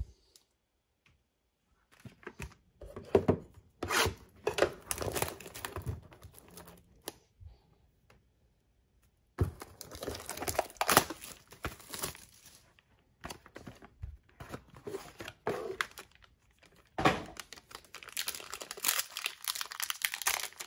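Plastic shrink-wrap torn and crinkled off a trading card box, then a Topps 2020 Inception foil card pack crinkled in the hands, in irregular bursts of crackling with short quiet pauses between them.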